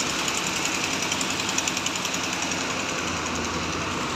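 Engine running steadily with a fast, even clatter, from the machines pumping the floodwater out.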